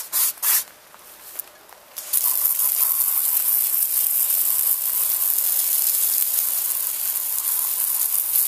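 Garden hose spray nozzle jetting water onto a truck tire and wheel: a steady hiss that starts about two seconds in. Just before it, a few quick strokes of scrubbing on the tire.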